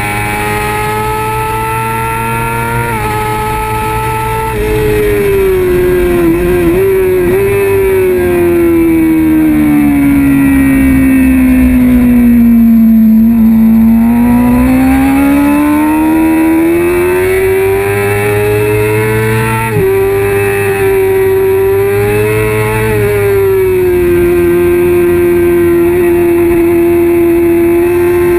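Kawasaki ZX-6R 636 inline-four engine at racing revs. Its pitch steps suddenly a few times in the first five seconds, sinks slowly for several seconds, climbs back with a sudden step about twenty seconds in, and then holds steady.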